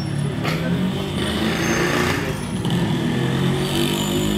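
A motor engine running steadily with a low hum, over outdoor street noise; a brief clatter about half a second in.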